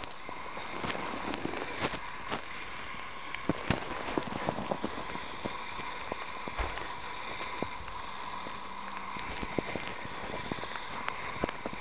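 Footsteps crunching in snow: irregular sharp crunches and clicks over a steady hiss.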